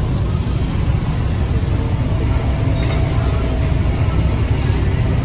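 Steady low rumble of street traffic, with a few light clinks.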